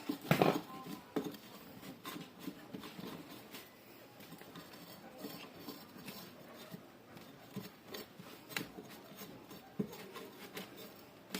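Scattered small clicks and taps of objects being handled, with one louder knock about half a second in.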